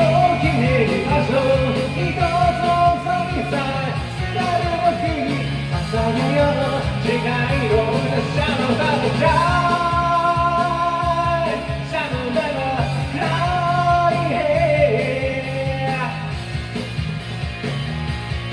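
Rock music backing track with a man singing along, holding long notes.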